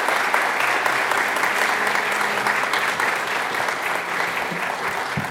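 Audience applauding steadily: a dense mass of many hands clapping at once.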